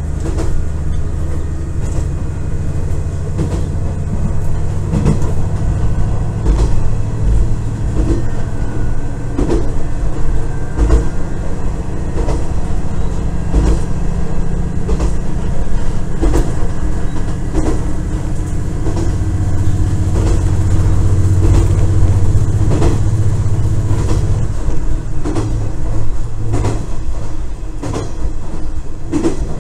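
KiHa 110 series diesel railcar running along the line, heard from inside its rear cab: a steady low drone of the diesel engine and running gear, louder for several seconds in the second half, with irregular clacks of the wheels over rail joints.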